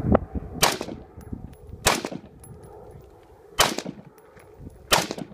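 AR-style rifle firing slow, aimed single shots, one every one to two seconds, each a sharp crack with a short echo.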